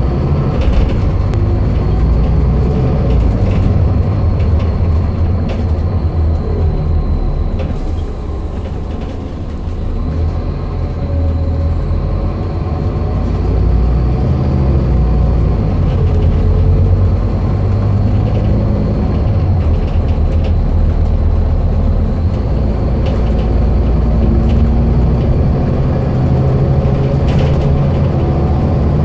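Scania N230UD double-decker bus's five-cylinder diesel engine and ZF Ecomat automatic gearbox running under way, heard from inside the passenger saloon as a steady low rumble. It eases off for a few seconds about a third of the way through, then builds again. Occasional light clicks come through.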